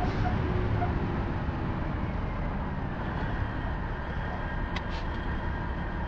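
Steady low rumble with a hiss over it, easing off slightly.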